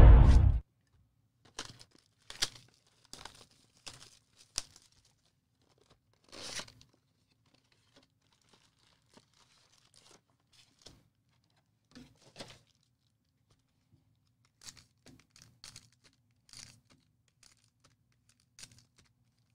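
Music cuts off about half a second in, then sports-card packs and wrapping are torn open by hand: scattered short tears and crinkles of wrapper, with a longer tear about six and a half seconds in.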